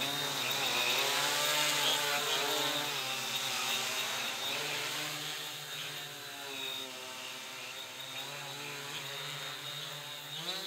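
Quadcopter propellers and motors buzzing in flight, their pitch gliding up and down as the throttle is worked, with a quick rise in pitch near the end.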